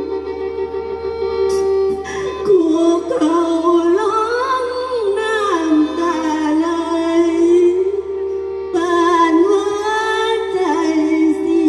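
Mor lam singing: a voice with sliding, ornamented melodic lines over a steady instrumental accompaniment with held tones, pausing briefly about two-thirds of the way through.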